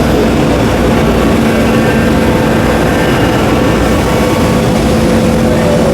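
CNC router running, a steady machine noise with a constant low hum and a higher steady tone over it.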